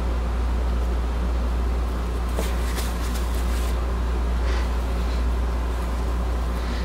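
Steady low hum, like a fan or appliance motor running, with a few faint light clicks about two and a half to four seconds in.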